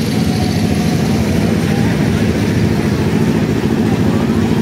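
A loud, steady low engine drone with no change in pitch.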